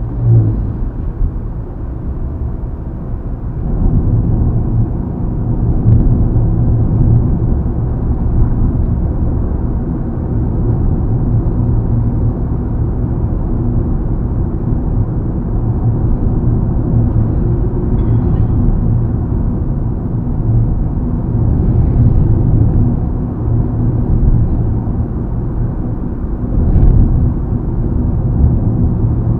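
Steady, low road and tyre noise with engine hum, heard inside a Mitsubishi Xpander's cabin cruising on smooth asphalt highway; it grows a little louder about four seconds in. The door gaps have been newly sealed with rubber strips to cut wind noise.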